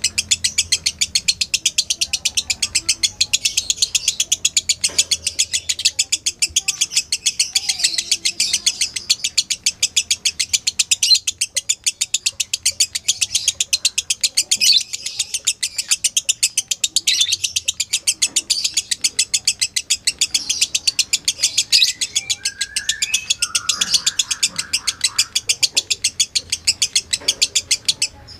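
Lovebird 'ngekek': a long, unbroken run of rapid, high-pitched chattering notes, about five a second, repeated steadily without a pause.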